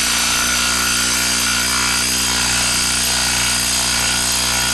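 Hilti brushless cordless impact driver hammering steadily at full speed as it drives a lag screw into a wood stump through a socket on a hex adapter.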